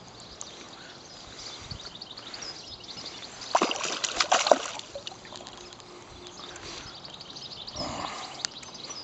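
A hooked trout splashing and thrashing at the water's surface while being played, in a burst of sharp splashes about three and a half seconds in, over the steady low rush of the stream.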